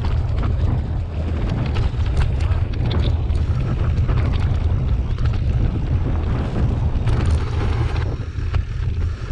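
Wind buffeting an action camera's microphone on a mountain bike riding fast over a dirt and grass trail: a steady low rumble, with the bike's rattles and knocks over bumps throughout.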